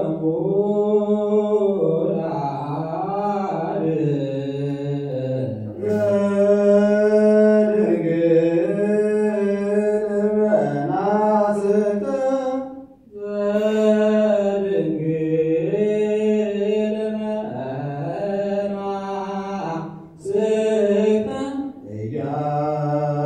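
Ethiopian Orthodox liturgical chant: voices sing long, melismatic phrases on held, wavering notes, with brief breaks between phrases about six, thirteen and twenty seconds in.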